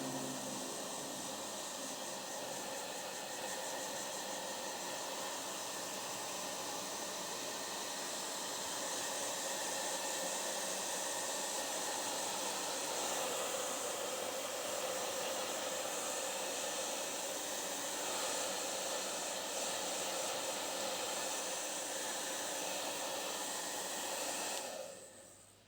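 A steady, even rushing hiss that fades out near the end.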